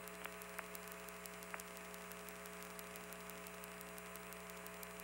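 Steady hum and hiss of an open air-to-ground radio link with no one talking, with a few faint clicks in the first second and a half.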